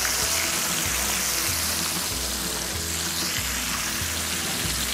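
Whole black sea bass deep-frying in a wok of peanut oil at about 350 degrees, a steady sizzle. A bass line of background music plays underneath.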